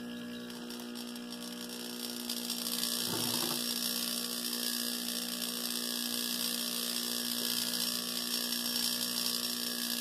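Reclaimed air-conditioner compressor, rigged as a vacuum pump, humming steadily as it pulls a vacuum on a jar of water. A hiss comes up about two seconds in and holds, with a brief rustle just after three seconds.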